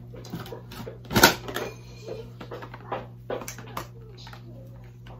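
Clicks and light clatter of small objects being handled, with one sharper knock about a second in and a few smaller clicks over the next couple of seconds.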